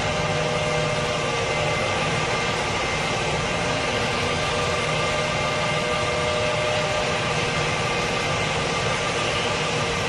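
A steady engine drone with a constant hum, running evenly without revving or pausing.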